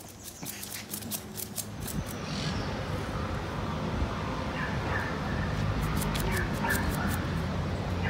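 A Yorkshire terrier's claws click on paving tiles for the first couple of seconds. After that the terrier vocalises with a few short, high sounds over a steady low rumble.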